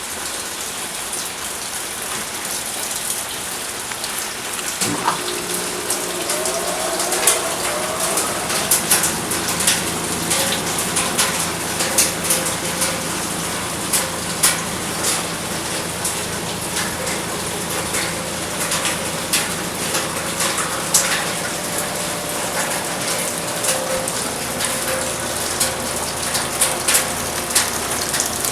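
Steady rain falling, with frequent sharp drips and splats. About five seconds in, a steady mechanical hum starts up beneath it with a brief rising whine, then runs on under the rain.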